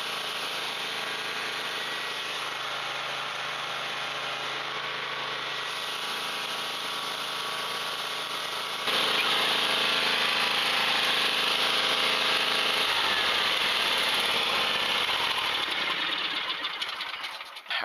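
A steady mechanical running noise with a constant hum. It gets louder about nine seconds in and fades out near the end.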